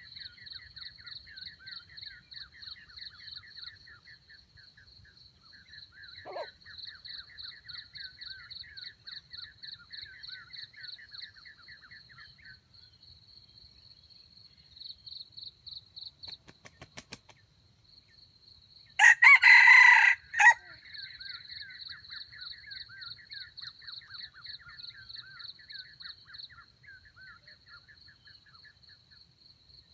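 A red junglefowl rooster crows once, about two-thirds of the way through, a short crow of about a second and a half. Insects trill steadily throughout.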